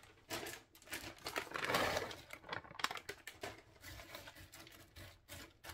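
Hands spreading frozen egg noodles in a plastic slow-cooker liner: light, irregular clicking of the hard noodle strips knocking together, with rustling plastic, heaviest in the first two seconds.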